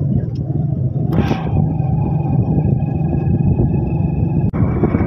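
Motorcycle engine running steadily while riding, heard from the rider's seat. There is a short rush of noise about a second in, and the sound cuts out for an instant near the end.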